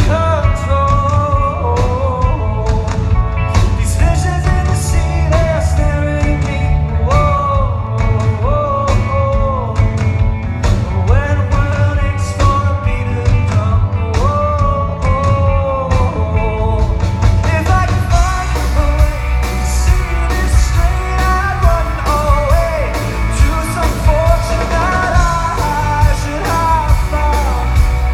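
Male lead vocalist singing live with a rock band: a sung melody over drums, bass and guitar at a steady beat. The band's sound grows fuller about two-thirds of the way in.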